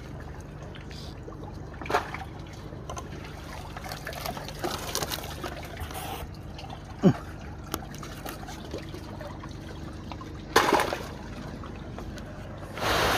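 Rainwater trickling and dripping steadily, with a few brief knocks. Near the end it swells into louder, heavier rain noise.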